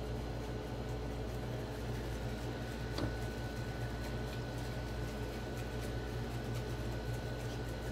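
A steady low machine hum with a few faint steady tones over it. A single faint click comes about three seconds in.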